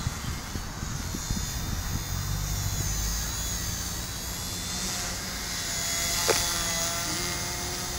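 Small electric RC helicopter flying, the high whine of its motors and rotors wavering in pitch as it manoeuvres, over a heavy rumble of strong wind on the microphone. A short sharp click about six seconds in.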